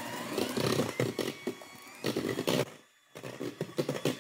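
Electric hand mixer beating egg whites and sugar in a stainless steel bowl, with a brief break about three seconds in. A dog whines over it in thin rising and falling cries, begging for a treat.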